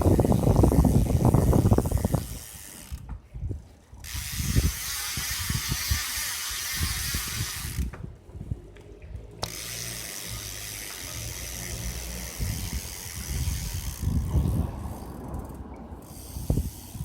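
Speedone Soldier six-pawl bicycle hub freewheeling: the pawls give a rapid ratcheting buzz of clicks as the wheel coasts. It is loudest for the first two seconds, softer with a hiss through the middle, and louder again near the end.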